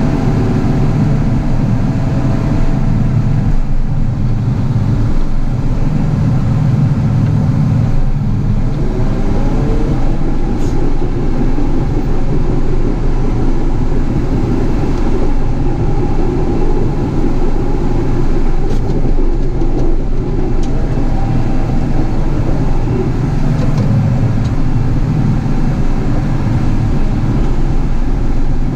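Caterpillar 973C track loader's diesel engine running steadily under work, its revs rising about eight seconds in, with a few faint clanks.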